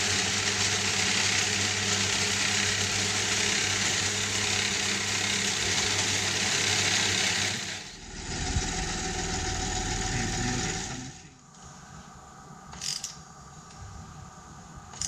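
A metal-cutting bandsaw runs and cuts through a small metal piece, a steady hiss over the motor hum, for about eight seconds. A milling machine then cuts metal held in a vise for about three seconds before it stops, leaving a quieter workshop with a couple of short clicks near the end.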